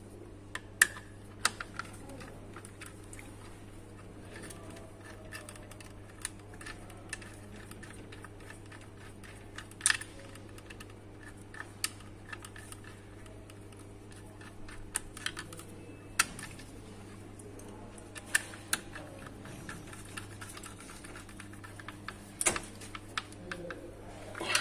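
Irregular clicks and taps of a screwdriver and cables being worked at the terminals of a DIN-rail digital energy meter in a circuit-breaker panel, over a steady low hum.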